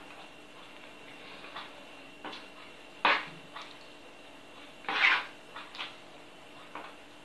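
A utensil stirring wet brioche dough in a well of flour on a wooden board: short, irregular scrapes and squelches, with two louder ones about three and five seconds in.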